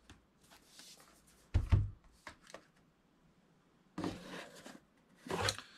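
Packaging being handled: faint, intermittent rustling and light clicks, with a soft knock about one and a half seconds in.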